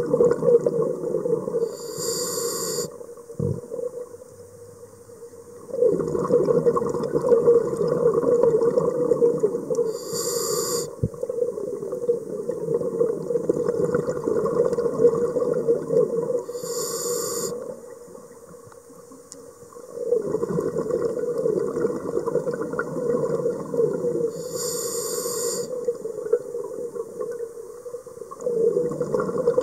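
A scuba diver breathing through a regulator, heard through an underwater camera housing: four short hisses of inhalation, about seven seconds apart, each followed by several seconds of bubbling exhalation.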